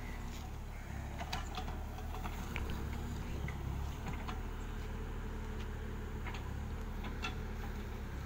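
JCB 30 Plus mini excavator's diesel engine running steadily as it digs a trench, with scattered sharp clicks and knocks over the engine hum.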